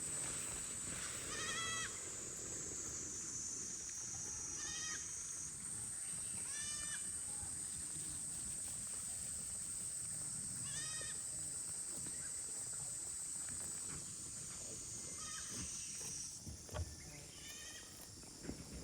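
Young goats bleating: about six short, high calls scattered through, over a steady high-pitched drone.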